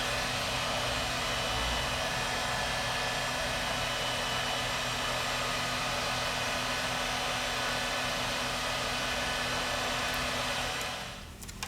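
Hot-air gun blowing steadily with a faint motor whine, switched off near the end.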